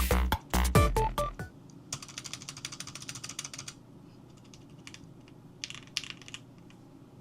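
Typing on an NEO65 mechanical keyboard with Haimu Joker switches and PBT keycaps, heard after background music stops about a second and a half in. A quick run of keystrokes comes first, then a pause, then a few scattered keystrokes and a short flurry near the end.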